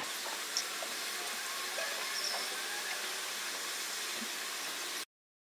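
Steady hiss of fast-forwarded outdoor ambience, with a few faint ticks, that cuts off abruptly about five seconds in.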